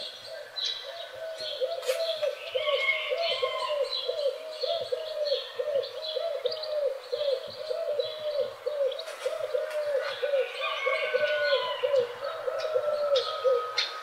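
Morning birdsong: a low arched call repeated steadily about three times a second, under scattered higher chirps and whistles from other birds.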